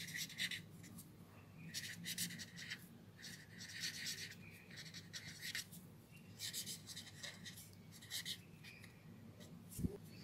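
A pen scratching across ruled paper as words are handwritten, coming in short clusters of strokes with brief pauses between them, over a faint steady low hum.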